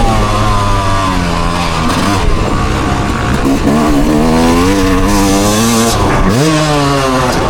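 A loud vehicle engine revving, its pitch wavering up and down, dropping and then climbing sharply near the end.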